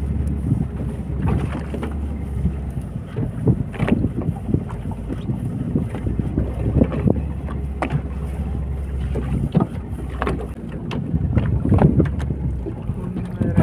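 Wind buffeting the microphone and sea water slapping against the side of a fishing boat, with scattered short knocks and splashes. A low rumble comes and goes, dropping out about a second before the end.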